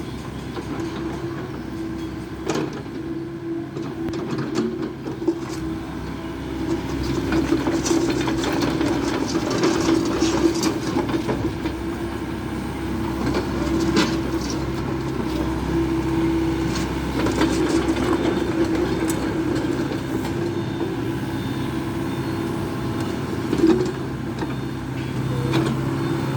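Volvo EC55B compact excavator's diesel engine running steadily while the machine is worked through its hydraulic functions, getting louder about seven seconds in, with a few sharp clanks.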